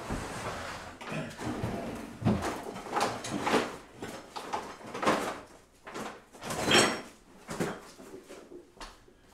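Rummaging: an irregular string of knocks, scrapes and rustles as things are moved about and dug through, with the loudest clatter about two-thirds of the way through.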